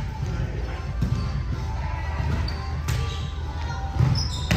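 A volleyball being struck and hitting the gym floor: sharp slaps a few times, the loudest about four seconds in. Background music plays throughout.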